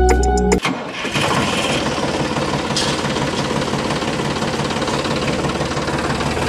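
Tractor engine running steadily with a fast, even chugging, setting in about half a second in.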